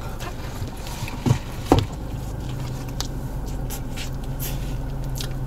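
Close-up eating sounds, chewing and sipping through a straw, with a few brief mouth sounds about a second and a half in and small smacking clicks later. Under them runs the steady low hum of a car's interior.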